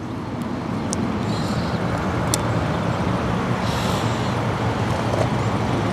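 Steady road traffic noise that slowly swells louder, with a few faint light clicks.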